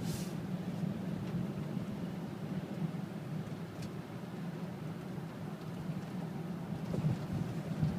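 Steady low rumble of a 2014 Jeep Grand Cherokee Overland, with a few faint, brief ticks over it, part of the strange rattling noise the new vehicle is making.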